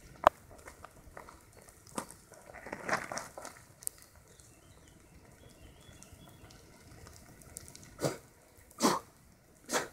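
Sizzle of a wood-ant mound: countless ants crawling over the dry conifer-needle thatch make a faint, continuous crackle of fine ticks. Louder short rustles stand out a few times, three of them close together near the end.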